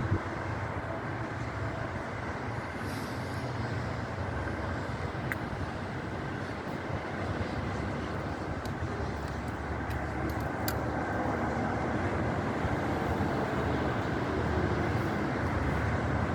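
Strong gusty wind buffeting the microphone, mixed with the steady rumble of highway traffic, growing slightly louder near the end.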